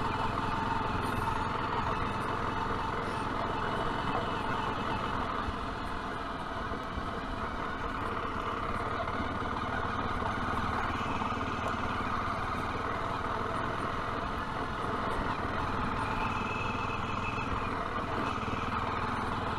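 Zontes T310 motorcycle's single-cylinder engine running steadily under way, heard from on the bike together with a steady rush of wind and road noise.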